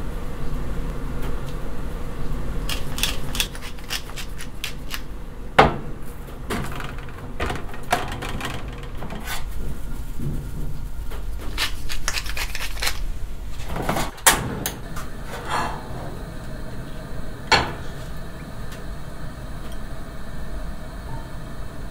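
Kitchen preparation sounds over a steady low hum: salt sprinkled and pepper ground onto isaki fillets, with scattered sharp clicks and taps and a few louder knocks.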